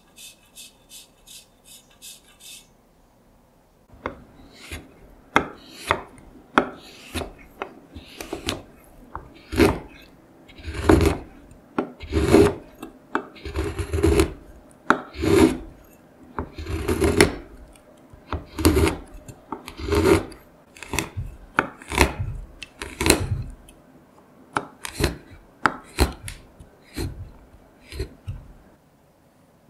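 A fine rasp grater shaving chocolate in quick, even strokes, which stop about two and a half seconds in. After a short pause, a chef's knife chops a bar of dark chocolate on a wooden cutting board: irregular crunching cuts, each ending in a knock of the blade on the board, one or two a second until near the end.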